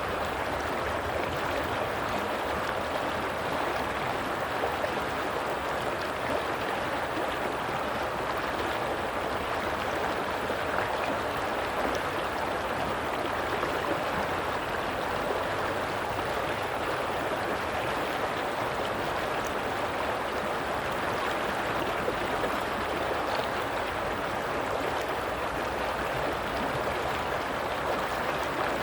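Flowing stream water rushing and gurgling steadily, an even wash of sound with no breaks.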